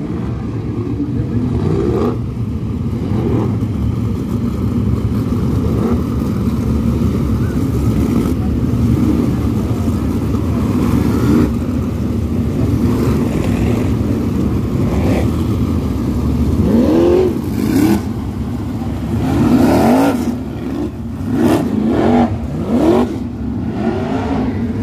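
Several winged dirt sprint cars' V8 engines circling the track, a steady engine din with repeated rising and falling pitch as cars rev and pass. The passes come thicker in the last third.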